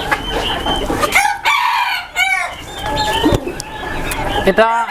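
Several chickens calling: roosters crowing and hens clucking, in a string of separate calls, with one longer held call about three seconds in.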